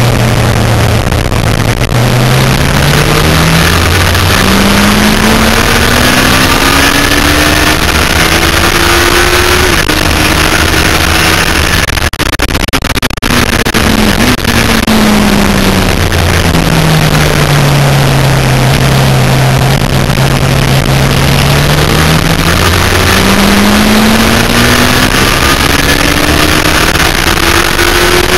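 Yamaha FZR1000's inline-four engine heard from onboard at racing speed, with heavy wind rush. The revs climb through upshifts for the first ten seconds or so, fall away as it shuts off and slows for a corner, hold low through the turn, then climb hard again near the end.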